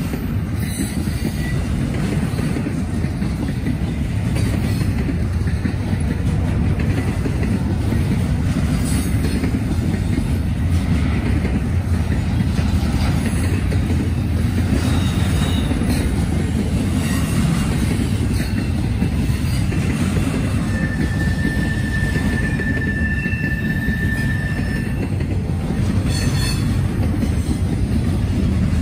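Norfolk Southern freight train rolling past, a steady rumble of cars on the rails with faint wheel clicks. A little past the middle a single high squeal holds for about four seconds.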